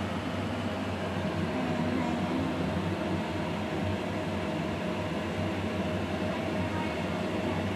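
Steady whir and hum of a running fan, with a thin constant tone over it.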